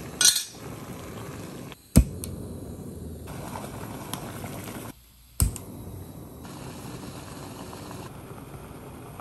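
Soto Windmaster canister stove burning with a steady hiss under a titanium pot of water coming to the boil. The hiss drops out briefly twice, and there are three sharp metallic clicks, the loudest about two seconds in.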